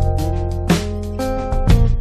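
Background music: a guitar-led track with strummed chords, a bass line and a steady beat.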